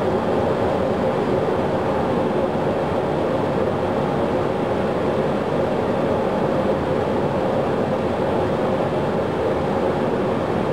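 Boeing 737 turbofan engine being started, the pneumatic starter turning it at low speed: a steady rushing noise with a steady whine through it.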